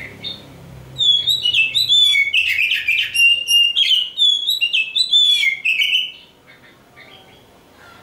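Oriental magpie-robin (kacer) singing a loud, fast, varied run of clear whistled notes that starts about a second in and breaks off about six seconds in, followed by a few faint notes.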